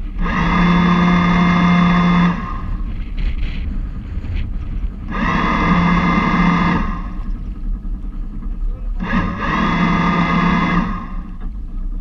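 Lewmar electric bow thruster on an LM 24 motorsailer run in three short bursts of about two seconds each, a steady electric-motor whine that starts and cuts off abruptly each time.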